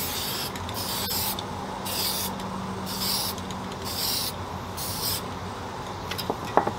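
Aerosol can of black spray paint sprayed in short, quick bursts, about five of them roughly a second apart, ending about five seconds in.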